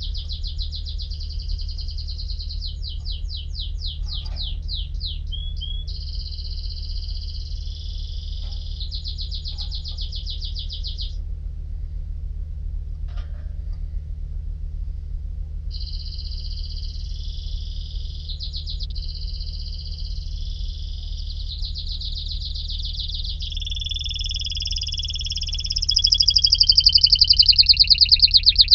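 Domestic canary singing: long phrases of high, rapid trills and rolls, with a pause of about four seconds midway and louder, sweeping phrases near the end. A steady low hum runs underneath.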